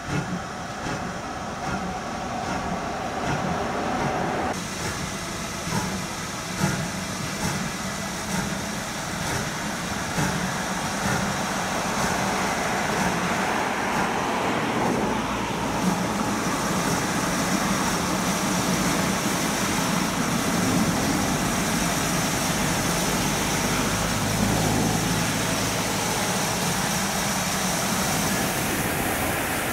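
GWR Hall class 4-6-0 steam locomotive 4953 Pitchford Hall with a steady hiss of escaping steam over a low rumble. The hiss starts suddenly about four seconds in and stops near the end.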